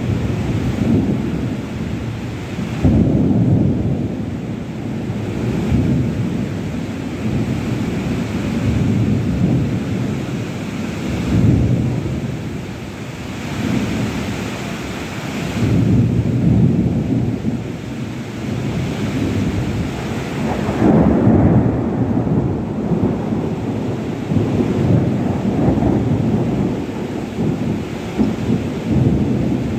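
Heavy rain pouring steadily, with deep surges of wind or rumble swelling and easing every few seconds over the hiss of the rain.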